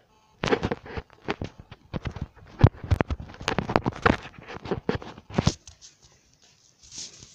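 Handling noise from a phone being gripped, with fingers rubbing and knocking close to its microphone. It is a rapid, irregular run of scrapes and knocks lasting about five seconds, then it stops.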